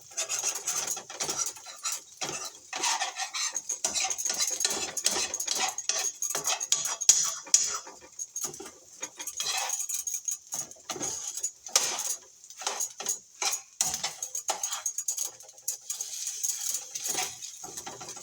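A utensil scraping and clicking against a nonstick frying pan as scrambled eggs are stirred, a dense run of quick scrapes and taps.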